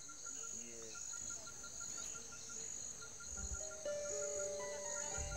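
Insects chirping steadily in a rhythmic, pulsing chorus. Soft sustained music notes come in about two-thirds of the way through.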